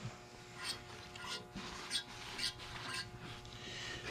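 Faint light clicks and rubs of a lubed valve being handled and slid into its guide in a 12-valve Cummins cylinder head, over a steady low background hum.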